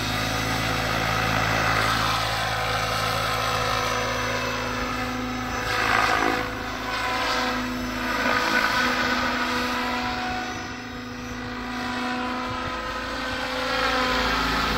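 Electric 750-size RC helicopter (HD Helicopters HD 750) flying with its rotor head at about 1650 rpm. The blade buzz and drive whine swell and fade and bend in pitch as it passes by, loudest about six seconds in.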